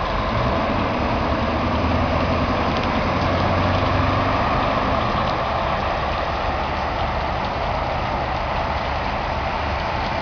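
Steady rush of heavy rain and floodwater running down a street. A low engine hum runs underneath and fades out about halfway through.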